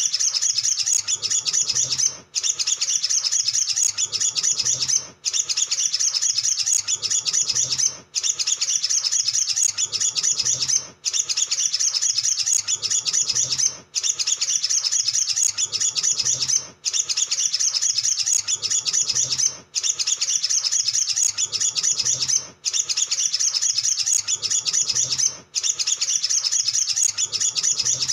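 Olive-backed sunbird singing a fast, non-stop high-pitched twittering song, the full 'gacor' song used as a lure to start other sunbirds singing. The same stretch of song repeats about every three seconds with a brief break between.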